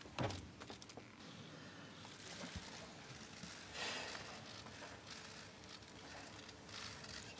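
Faint indoor ice-arena background noise with the crowd waiting quietly. A few small clicks and knocks come in the first second, and a brief swell of hiss-like noise comes about four seconds in.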